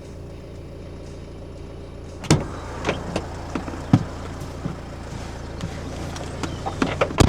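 A vehicle engine running with a steady low hum, broken by several sharp knocks and clunks.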